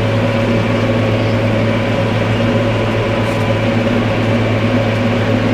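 Tractor engine running at a steady speed with a constant low drone, mowing hay.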